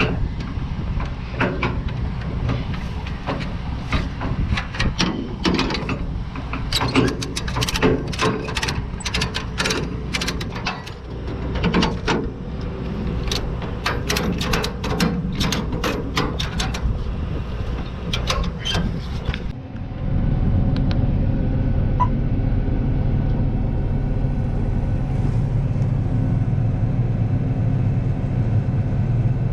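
Farm vehicle engine running, with many sharp clicks and rattles over a low drone. About two-thirds of the way through it switches suddenly to a louder, steady low engine drone with no clicks.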